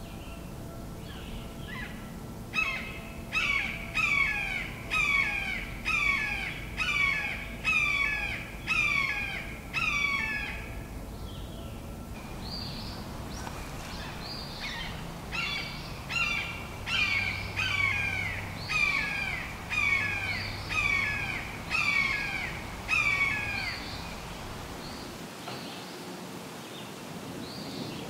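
Red-shouldered hawk calling in two runs of about nine to ten calls each, roughly one call a second, each call dropping in pitch.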